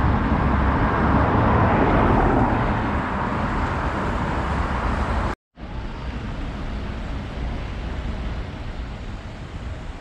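Street traffic: cars passing on a wet road, tyre noise over a low engine rumble, loudest in the first few seconds. It cuts out for a moment a little past halfway and comes back as steadier, quieter traffic.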